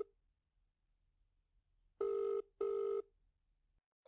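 Telephone ringback tone heard by the caller: a steady two-tone double ring about two seconds in, after the tail of the previous ring at the very start. The call is ringing unanswered at the other end and goes to voicemail.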